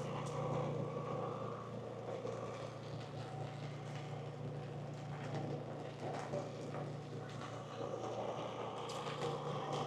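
City street noise: a steady low hum of traffic engines, with a few short clicks near the end.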